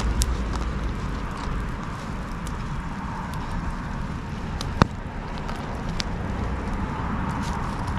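Wood bonfire crackling and burning steadily, with scattered small pops and one sharp, loud pop about five seconds in.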